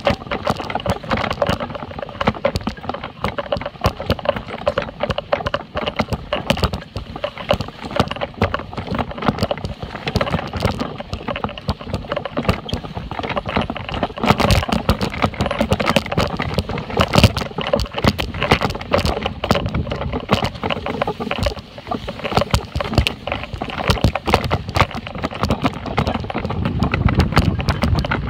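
A wagon pulled by two large dogs rolling over rough grass, rattling and knocking continuously with uneven jolts and bumps.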